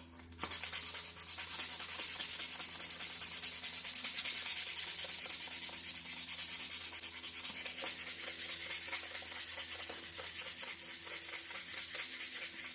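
Sandpaper rubbing back and forth by hand over the black canvas handle scales of a knife, in fast, even strokes several times a second. It starts about half a second in. The scales are being sanded down along the back spine for a finer finish and a tight fit to the blade.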